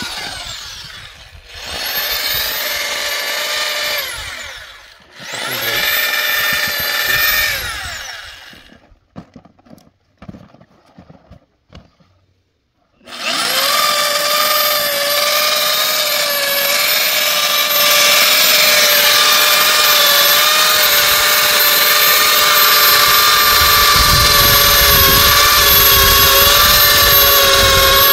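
Handheld plastic extrusion welder working on the geomembrane around a PVC pipe. Its motor whirs in two short runs that speed up and slow down, falls quiet, then about halfway through starts again and runs steadily with a high whine.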